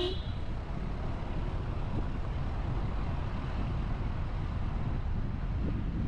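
A road vehicle driving: a steady, even low rumble of engine and road noise.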